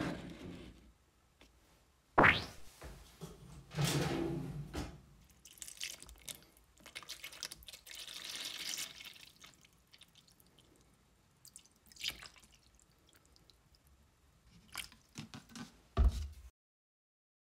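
Rust-removal acid poured from a plastic bottle over a rusty hatchet head in a plastic tub, splashing for about two seconds. Before and after the pour come knocks and clatters as the tub and head are handled, with sharp knocks about two seconds in and just after sixteen seconds.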